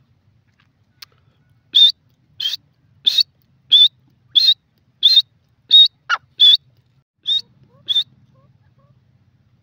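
Grey francolin calling: a run of about ten short, high whistled notes, roughly one and a half a second, with one longer note falling steeply in pitch a little past the middle.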